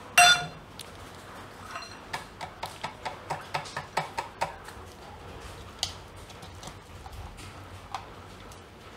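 A small steel bowl rings briefly at the start. Then a green plastic chopper bowl is tapped against the steel bowl to knock out minced ginger, chilli and garlic: a quick run of light clicks, about four a second, followed by a couple of single taps.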